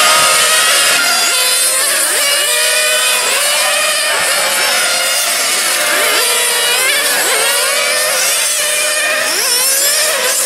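Several 1/8-scale radio-controlled touring cars with small glow-fuel two-stroke engines, running at high revs. Their high whines overlap and keep rising and falling in pitch as the cars brake and accelerate through the corners.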